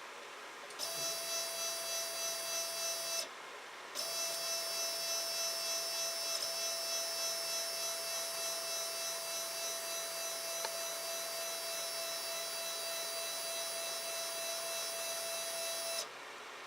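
Protomaker 3D printer's Z-axis stepper motors running, turning the threaded rods to move the carriage: a steady whine that starts about a second in, stops briefly near three seconds, then runs again for about twelve seconds before cutting off.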